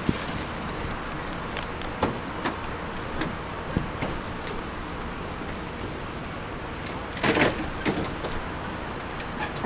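Crickets chirping in a steady, fast pulsing trill over a constant background hum. Scattered clicks and a louder metallic rattle about seven seconds in come from the wheeled ambulance stretcher being moved to the ambulance.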